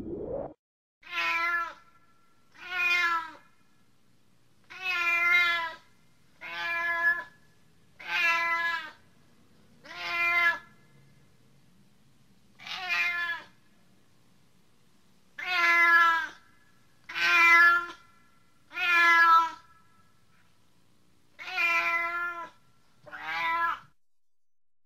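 Domestic cat meowing repeatedly: about a dozen separate meows, each under a second long, with pauses of one to three seconds between them.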